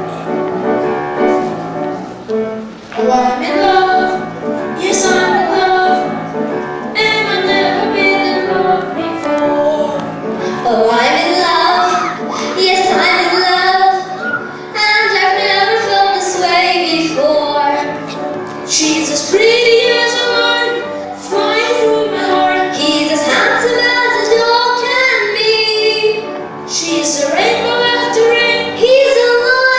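A young girl singing a song with instrumental accompaniment.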